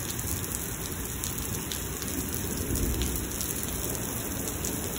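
Heavy rain falling steadily on wet pavement, a constant even wash of rainfall.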